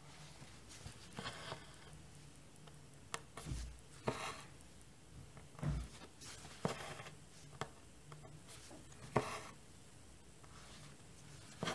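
Embroidery thread being drawn through cross-stitch fabric with a needle: soft swishes every second or two, with small clicks and taps as the fabric and frame are handled. A brief low thump comes about halfway through.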